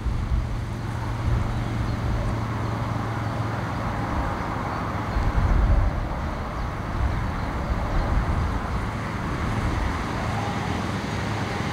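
Steady outdoor background hum, like distant road traffic, with a gust of wind buffeting the microphone about five seconds in.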